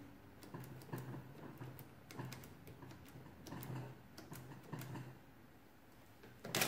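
Number keys of a Victor manual adding machine being pressed one after another: a run of light, irregular clicks. Right at the end a much louder mechanical rattle starts.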